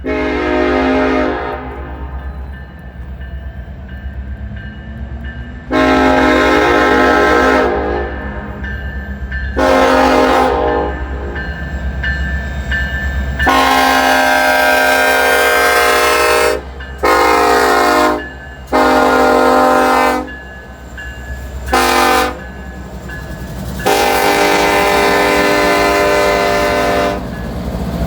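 Locomotive air horn sounding eight blasts of different lengths, some long and some short, over a steady low rumble from the train.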